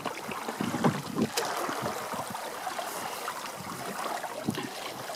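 Water slapping and gurgling irregularly against the hull of a canoe moving under sail through choppy water, with light wind in the background.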